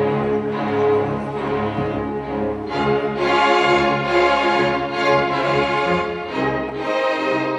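String orchestra playing classical music, sustained bowed notes from cellos and basses with violins. The higher strings come in about three seconds in.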